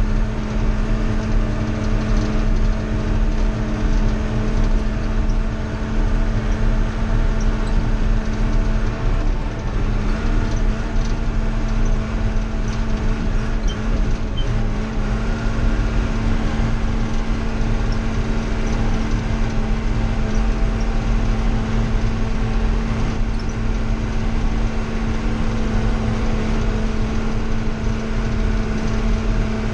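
Old John Deere's engine running steadily as it drives along, heard from inside the cab: a constant low hum with a steady tone.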